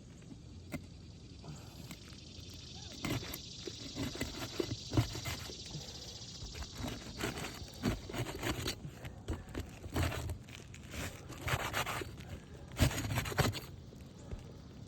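Irregular scraping and sharp clicks as a damaged roof shingle is worked loose, with a few louder knocks near the middle and again near the end.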